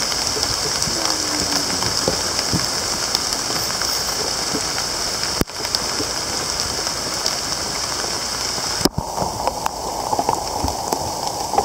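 Steady rain falling, a constant hiss of drops, broken twice by brief drop-outs about five and nine seconds in.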